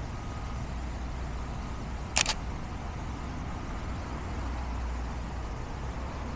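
A single quick camera shutter click about two seconds in, over a steady low background rumble.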